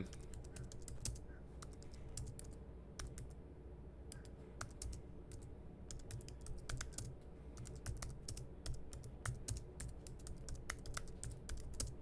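Computer keyboard being typed on: faint, irregular runs of keystroke clicks, over a low steady hum.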